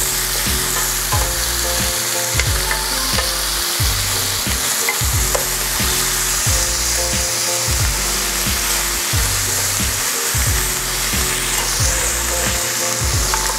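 Marinated beef short ribs (LA galbi) searing in an oiled pan over high heat: a steady, loud sizzle as the meat browns and starts to smoke.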